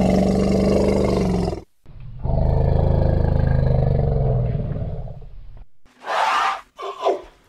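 Recorded elephant call: two long, deep calls, the second one longer at about three seconds.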